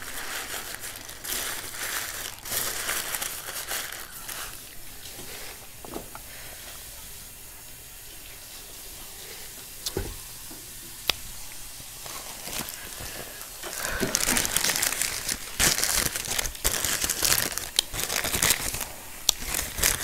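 Paper food wrapping crinkling and rustling as it is handled, in bursts at the start and again for several seconds near the end, with a quieter stretch and a couple of sharp clicks in the middle.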